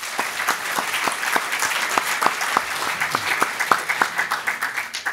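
Audience applauding with many quick claps, dying away just after the end.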